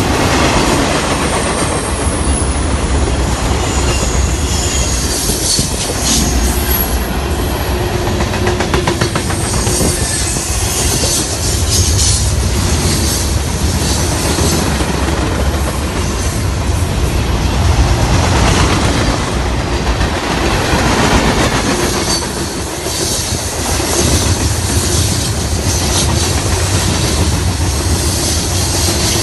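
Freight train cars rolling past close by: a steady rumble of steel wheels on the rails, with scattered clicks as the wheels cross the rail joints.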